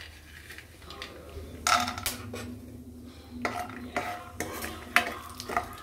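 A metal ladle stirs peanuts and cashews frying in ghee in a nonstick kadai. From about two seconds in it knocks against the pan several times, each a sharp clink that rings briefly, over a steady low hum.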